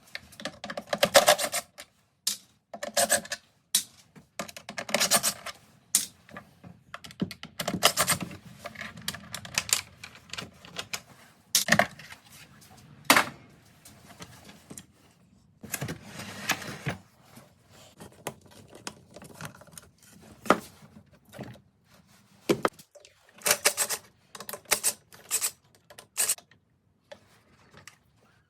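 Hand tools and parts being handled on a workbench: an irregular run of clicks, knocks, rattles and short scrapes, with brief pauses between them.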